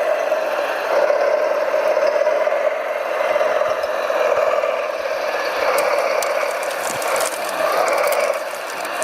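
Steady whir of a radio-controlled model construction machine's electric drive and gearbox running, with a run of rapid clicking and rattling from about six seconds in.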